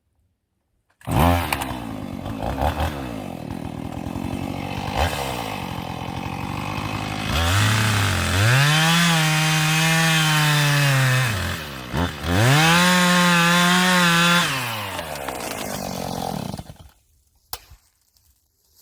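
Chainsaw cutting through a blown-down poplar trunk: the saw starts about a second in at part throttle, is revved to full throttle twice, for about four and then two seconds, as it bites into the wood, then drops back and stops suddenly near the end.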